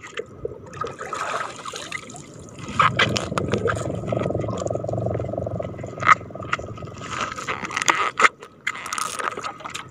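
A fishing line and its foam float hauled up by hand out of the sea: water dripping and splashing, with short knocks and scrapes of handling.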